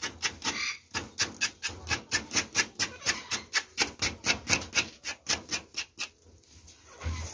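A knife blade scraping along an armadillo's banded shell in quick strokes, about five a second, stripping off scales and dirt to clean the carcass. The strokes stop about six seconds in.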